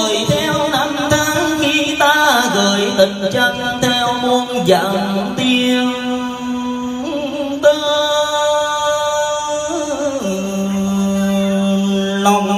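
A man singing long, drawn-out notes that slide from one pitch to the next, amplified through a microphone over instrumental backing music; from about ten seconds in he holds one low note steady.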